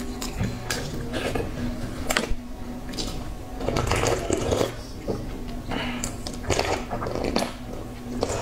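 Thin clear plastic food container clicking and crackling as it is handled and tipped up to the mouth, with mouth sounds of eating, in irregular bursts.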